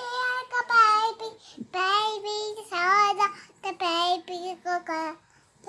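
A toddler singing in a high voice, in several drawn-out phrases with short breaths between.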